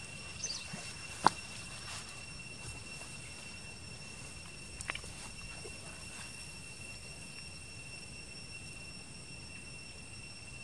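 Steady high-pitched drone of insects calling at a few fixed pitches. A sharp click stands out about a second in, with a smaller one near five seconds.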